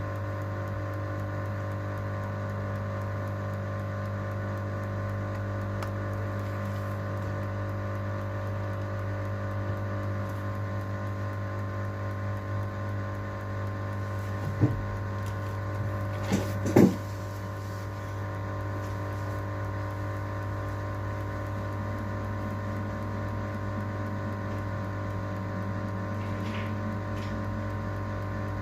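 A steady electrical hum with several fixed tones, joined by a few sharp clicks or taps about halfway through.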